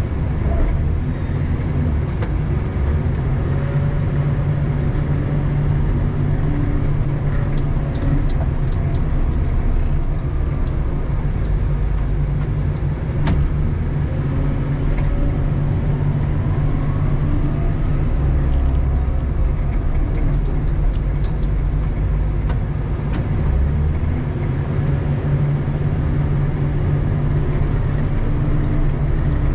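Doosan DL250 wheel loader's diesel engine running steadily, heard from inside the cab. There is a single sharp click about thirteen seconds in.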